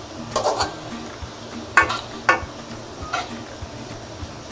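A perforated steel slotted spoon stirring thinly sliced onions in a steel kadhai, scraping on the pan's metal about four times, over the sizzle of onions frying in oil on medium-high heat as they turn golden.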